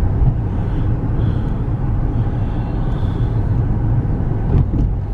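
Car cabin noise while driving: the steady low rumble of the engine and tyres on the road, with a short click about four and a half seconds in.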